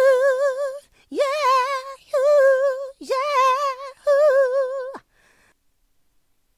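Female vocal ad-lib sample: a singer holds five short notes on the same pitch, each just under a second long, scooping up into each one and singing it with a wide vibrato. It stops about five seconds in.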